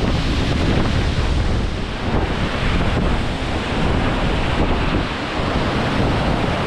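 Strong wind buffeting the microphone in gusts, over the steady rushing roar of a large waterfall.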